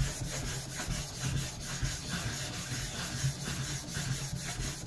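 A flattening plate rubbed back and forth across the face of a Morihei 1000 grit whetstone, a steady gritty scraping in repeated strokes, as the stone's surface is flattened.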